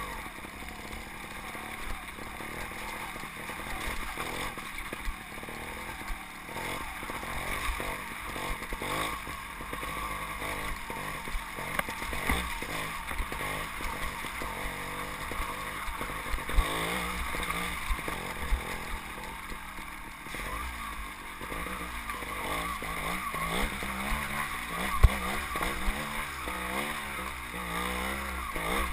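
Trials motorcycle engine heard from a camera on the bike, its revs rising and falling over rough ground, with frequent sharp knocks and clatter from the bike over rocks.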